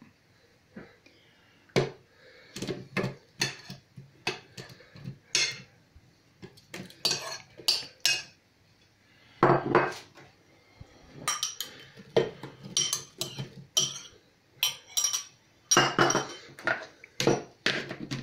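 A metal spoon clinking and scraping against a china plate and a plastic blender jug as chopped fruit and strawberries are spooned in, in irregular knocks and clatters. The blender's plastic lid is fitted on near the end.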